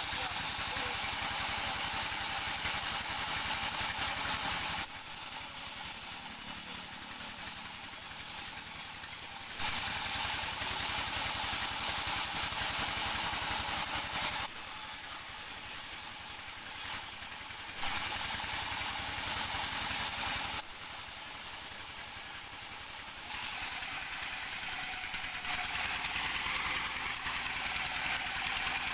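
Engine-driven sawmill machinery running steadily, its loudness stepping abruptly down and back up several times.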